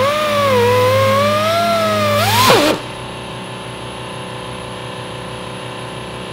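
Pneumatic die grinder with a sanding drum spinning up to a high whine and grinding a steel gusset, its pitch wavering under load. It winds down and stops about two and a half seconds in.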